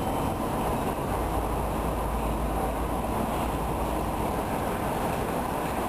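Steady low rumble of railway station platform ambience, with no distinct events standing out.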